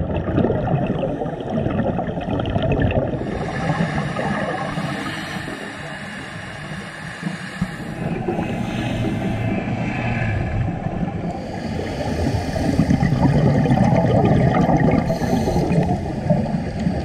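Muffled underwater ambience picked up through a dive camera's housing: a low, steady rush and rumble with some gurgling, changing in tone at the cuts.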